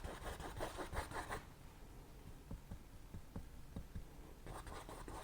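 Faint scratching of a paintbrush working oil paint onto a stretched canvas: quick scratchy strokes for about a second and a half, a quieter stretch with a few soft taps, then the scratching starts again near the end.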